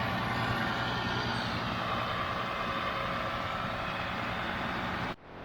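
International Harvester 886 tractor's six-cylinder diesel engine running steadily under load while driving a John Deere 335 round baler through hay. The sound cuts out abruptly near the end.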